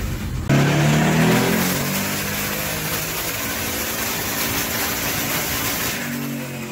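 LS V8 engine in a red Dodge pickup. For the first half second it is heard cruising from inside the cab, then it cuts to the engine at full throttle on a chassis dyno, climbing in pitch. It eases off a little about six seconds in.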